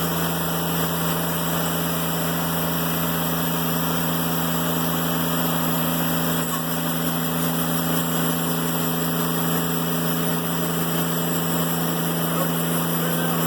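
Diesel engine of a Timberking 1400 band sawmill running steadily, driving the band blade through a cut in an old barn beam. The steady hum and blade noise go on unbroken, with no knocks.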